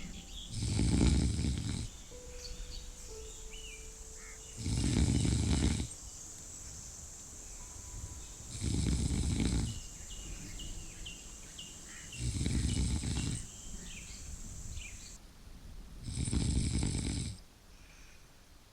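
Slow, regular snoring: five snores about every four seconds, each lasting about a second.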